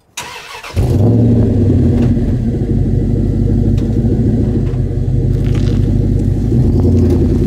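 Vehicle engine running with a deep, steady exhaust note, coming in suddenly and loud about a second in after a brief quieter sound.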